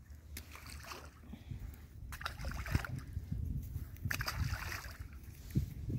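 Small silver bream and young bream tossed back into the river by hand, landing in the water with a couple of light splashes.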